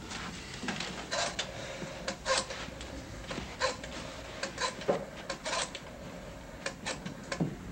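Irregular soft knocks, clicks and scrapes: footsteps crossing a room and a window being unlatched and worked open.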